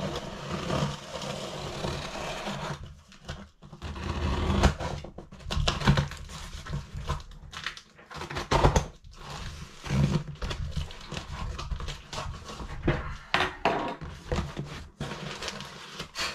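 A parcel being opened and its contents handled: irregular rustling of packaging, scraping and short knocks.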